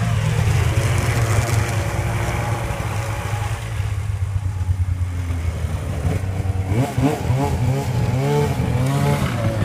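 2009 Arctic Cat F1000 snowmobile's two-stroke engine running steadily at low revs, its pitch rising and falling several times near the end.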